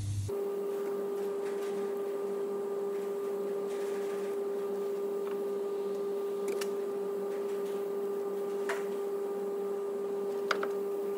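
A steady electrical hum at one mid pitch with fainter overtones, with a few faint clicks of metal brake parts being handled as the greased caliper slider pins are worked back and forth.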